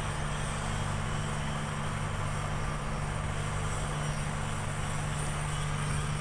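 Steady low mechanical hum, like a machine or engine running, under a constant hiss; it does not change.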